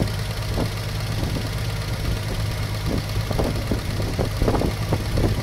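Dune buggy engine idling: a steady low hum with scattered short knocks.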